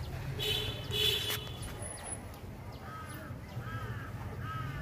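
A crow cawing twice in the first second and a half, followed by a run of short arched chirps from a smaller bird, over a steady low outdoor rumble.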